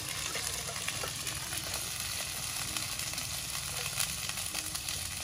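Jengkol beans frying in hot oil in a pan: a steady sizzle with a few small pops.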